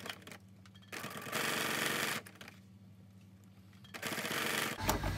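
Electric domestic sewing machine stitching across a bag's gusset in short runs, stopping and starting: a brief run, then a longer run of about a second, then another short run near the end. This is the back tack at the start of a seam.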